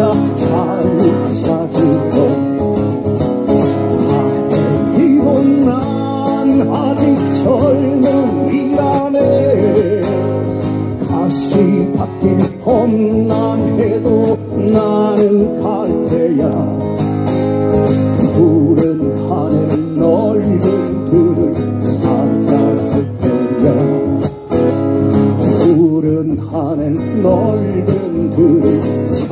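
Live music: a strummed acoustic guitar accompanying a singing voice.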